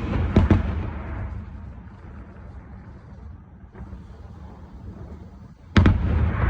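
Fireworks bursting: two sharp bangs close together about half a second in and a louder one near the end, each trailing off in a low rumbling echo.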